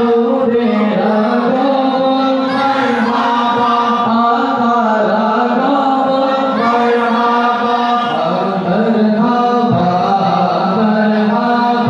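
Voices chanting a naat, a devotional poem in praise of the Prophet, without instruments, in long held notes over a steady low sung line.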